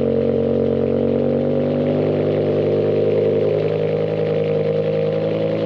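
BMW E60 M5's S85 V10 idling after a cold start on a 45 °F day, its mufflers deleted so it runs through the bare exhaust and quad tips. The note is steady and loud, shifting slightly about three and a half seconds in.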